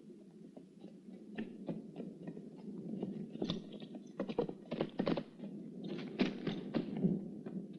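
A galloping horse's hoofbeats and a man's running footsteps on dry dirt, heard as irregular thuds that grow louder and come faster, over a steady low noise.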